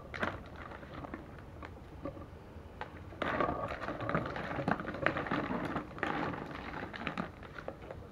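Freshwater snail shells clicking and rattling against each other and a plastic basin as they are stirred with a plastic ladle, a rapid irregular clatter that grows busier and louder about three seconds in.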